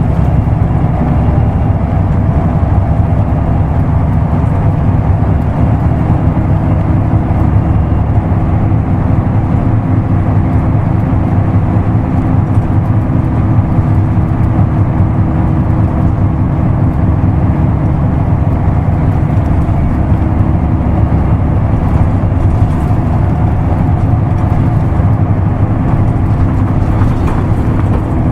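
Isuzu Erga Mio non-step bus with manual gearbox under way, heard from inside: a loud, steady engine drone and road rumble, with a faint steady whine joining about six seconds in.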